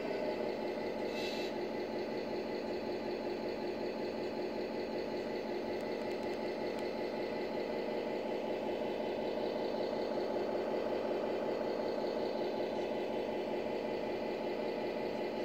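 Simulated diesel engine sound from a 1/14-scale RC heavy truck, idling steadily.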